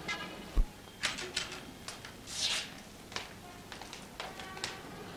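Old film soundtrack: a car door thuds shut about half a second in, followed by scattered clicks and knocks and a brief rustle.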